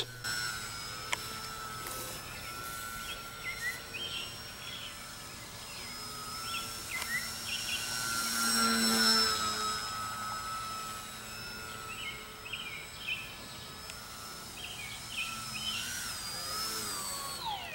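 Whine of a small RC plane's 1300 kV brushless motor and propeller in flight. It grows louder around the middle and drops in pitch near the end. Birds chirp briefly a few times.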